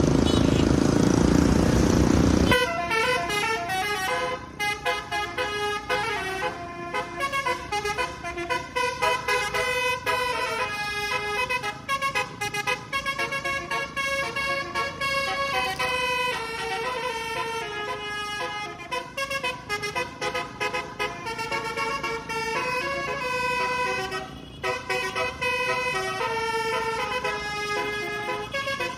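A Basuri multi-tone "telolet" bus horn plays a tune of stepped notes, one after another. Before the tune starts, about two and a half seconds in, there is a loud rushing noise.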